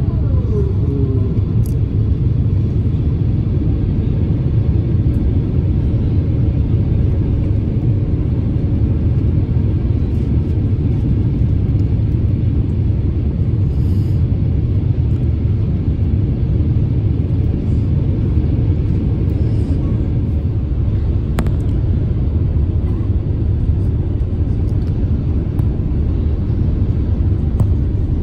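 Steady cabin noise of an Airbus A350-1000 airliner descending on approach, heard from a window seat over the wing: a deep, even rumble of its Rolls-Royce Trent XWB engines and the airflow over the airframe.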